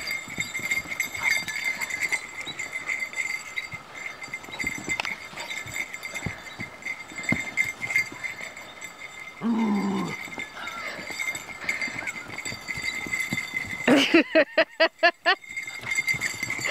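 Dogs and a barefoot man running and romping on packed dirt: scattered thumps of paws and feet throughout. There is a short falling vocal sound about halfway in, and a quick run of about eight short vocal pulses near the end, the loudest part.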